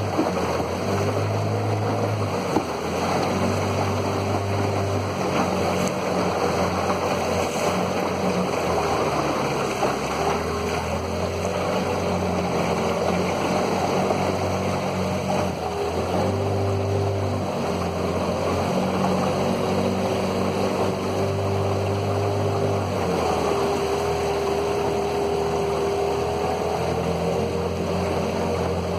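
Outboard motor of a small aluminium boat running steadily under way, with water rushing along the hull.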